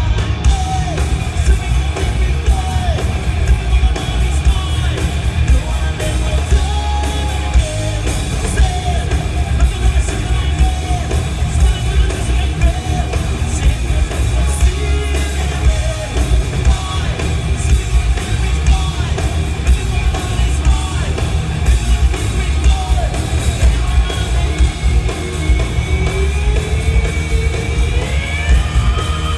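Live hard rock band playing loud, with a singer yelling and singing over the instruments. A long rising note glides up near the end.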